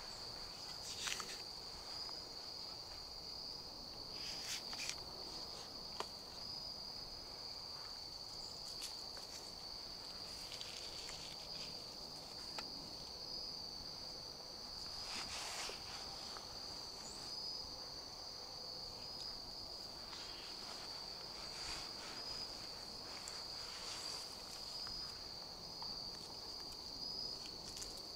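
Insects trilling in one steady, high, unbroken drone, with a few brief rustles about a second in, around four seconds in and midway through.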